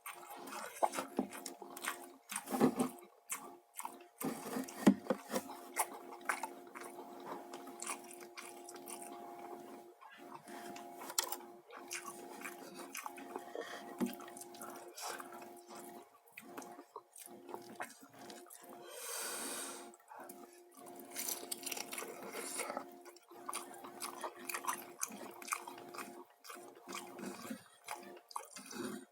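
Close-up eating sounds: wet chewing, smacking and small bites of fried chicken and rice, in irregular clicks, over a steady low hum, with a brief hiss about two thirds of the way through.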